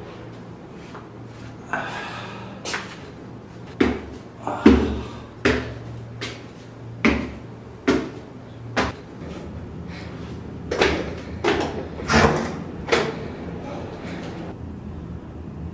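A series of about a dozen sharp knocks and thumps at irregular intervals, like doors or cupboards being opened and shut, over a low steady hum. There is a short pause in the middle.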